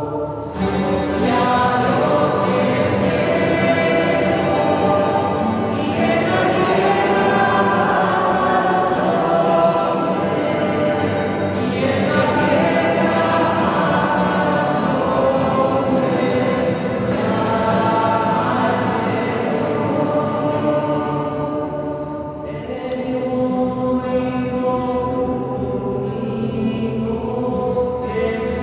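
A choir singing a church hymn in Spanish, continuous sung lines with a brief drop in level about three-quarters of the way through.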